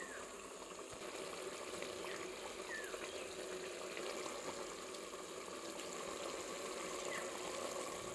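Chicken curry simmering in an open pressure cooker on the stove, a steady soft bubbling and hiss as the chicken cooks down in its masala before water is added.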